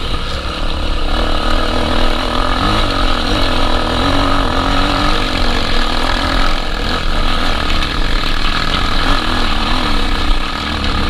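Honda XR 250 Tornado trail bike's single-cylinder four-stroke engine running steadily while riding, its pitch wavering a little with the throttle.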